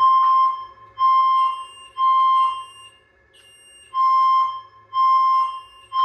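Fire alarm notification appliances sounding the temporal-three evacuation pattern: three half-second tones about a second apart, a pause, then three more. A clean tone near 1 kHz is joined by a higher tone that drops in pitch on each beat. The alarm was set off by a heat detector tripped while the system is in walk test.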